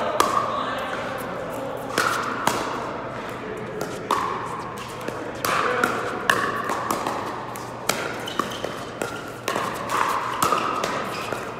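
Pickleball paddles hitting a plastic ball in a rally: a run of sharp pops one to two seconds apart, each ringing briefly and echoing in a large indoor hall.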